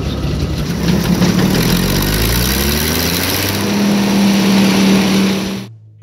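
Engine powering a belt-driven circular sawmill, running with its speed shifting before it settles into a steady pitch about halfway through. The sound cuts off suddenly near the end.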